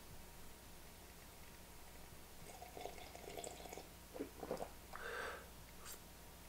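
A man sipping a drink from a mug: a few seconds of soft, irregular slurping and swallowing starting about halfway in, ending with a short click.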